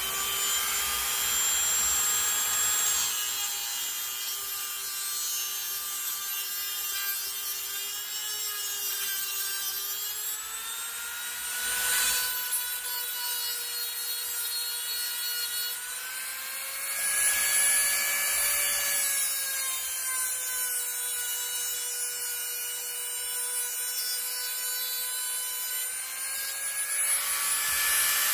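Power tool running steadily with a high whine while it cuts protruding pieces off flush. The pitch shifts a little, and the cutting noise grows louder about twelve seconds in, again around seventeen seconds and near the end as the tool bites.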